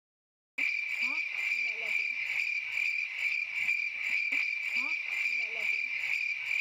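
Crickets chirping: a steady high trill with a fast pulsing beat that starts abruptly about half a second in, with short rising calls underneath that come back in the same pattern every three seconds or so.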